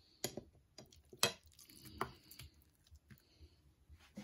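Raw seasoned steak being handled and turned over on a plate by hand: soft wet squishes and a few light clicks, the sharpest just over a second in.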